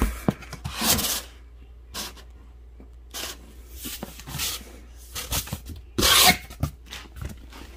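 Handling noise from packaged fireworks being moved about: a series of short rubbing and scraping sounds of cardboard and wrapping, about six in all.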